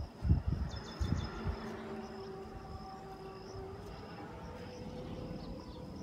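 A steady, high-pitched insect call, with a few low thumps on the microphone in the first second and a half.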